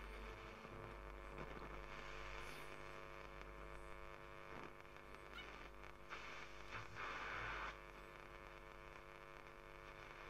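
Graetz Comedia 616 tube radio tuned across the medium-wave band, giving a faint steady hum and static with no clear station, and a short louder stretch of noise about seven seconds in.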